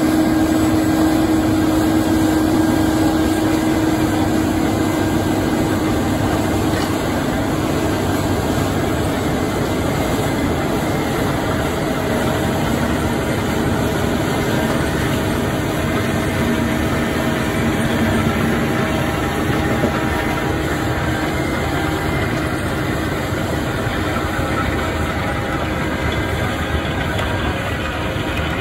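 Massey Ferguson tractor engine running steadily under load while it drives an FAE MTM/HP 225 multifunction head, whose rotor grinds through the ground to stabilise the soil. A steady, dense machine noise throughout.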